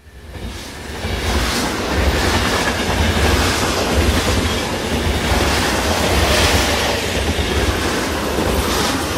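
A train running on rails: a steady low rumble with rattling noise, fading in over about the first second.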